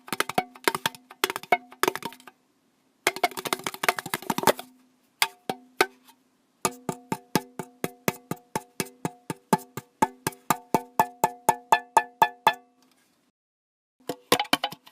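Sharp taps on a hard everyday object that rings with a short pitched tone after each strike. A quick flurry of taps comes in the first half, and after that a steady run of about four to five taps a second, which stops shortly before the taps start again near the end.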